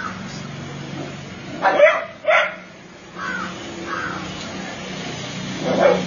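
A dog barking: two loud barks about half a second apart about two seconds in, and another near the end.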